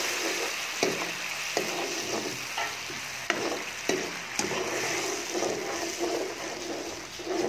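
Tomato purée with diced capsicum and garlic sizzling steadily in a nonstick wok while a steel spoon stirs it, scraping and clicking against the pan a few times.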